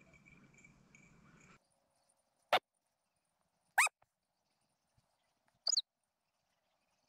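Hunting dog giving three short, sharp yelps, spaced a second or two apart.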